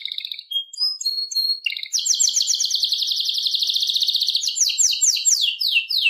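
A canary singing: a few short whistled notes, then a long, very fast trill from about two seconds in, which breaks near the end into a run of quick falling sweeps.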